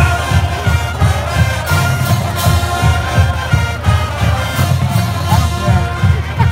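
Marching band playing a tune with brass over a steady drum beat.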